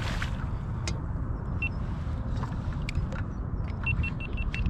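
Steady low rumble of wind buffeting the action camera's microphone on open water, with a few faint clicks and a quick run of short, high beeps near the end.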